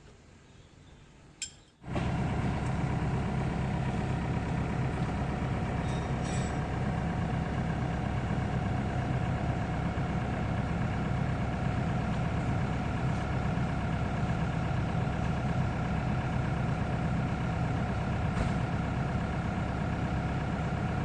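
Hitachi ZAXIS 70 excavator's engine running steadily at idle. It cuts in abruptly about two seconds in, after a near-quiet start with a single click.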